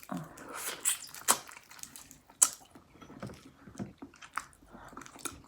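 A person chewing food, with irregular small wet clicks and crunches.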